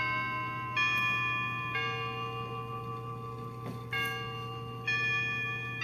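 Clock chime striking six: slow bell notes about a second apart, each one ringing on, marking 6 AM.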